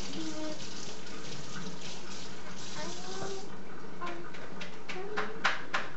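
Kitchen sink tap running as celery is rinsed under it, shutting off about three and a half seconds in. A few sharp clicks follow near the end.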